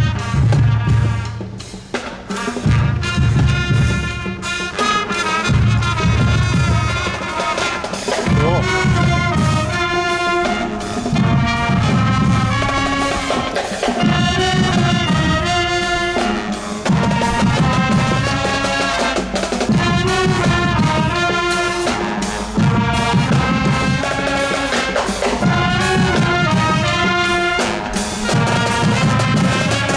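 Marching band playing: brass horns carry the tune over a steady beat of bass drums.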